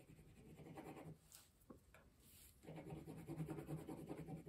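Faint dry scratching of back-and-forth colouring strokes on paper, filling in an area with a light brown colour, with a pause of about a second and a half in the middle.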